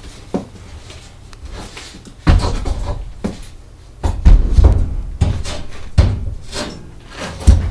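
Heavy steel plate being lowered and shifted onto a workbench top as it is tried for fit: a series of heavy thuds and clunks, with the first big one about two seconds in, more around the middle and another near the end, and rough scraping between them.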